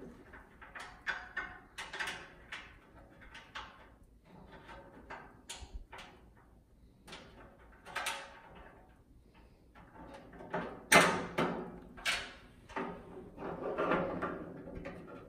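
Irregular metal clicks, knocks and scraping as a tubular metal tool-and-towel bar is worked into the sheet-metal side shelf of a grill, with one sharper knock near the end.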